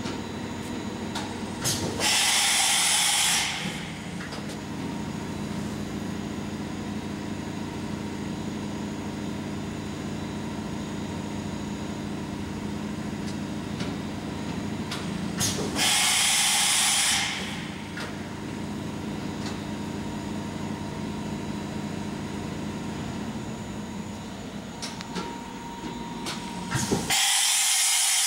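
Bridgeport VMC 800/30 XP2 CNC vertical machining center running a tool change: a steady hum with a faint high tone and light clicks. Three loud bursts of air hiss, each about a second and a half long, come near the start, about halfway through and at the very end.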